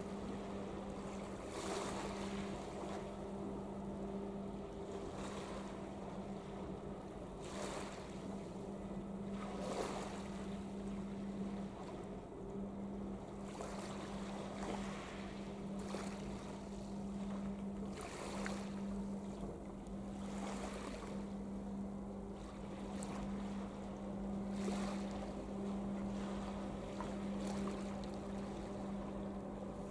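Steady low drone of ship engines from a large container ship and the tug alongside her as they pass close by, with a rush of noise every couple of seconds.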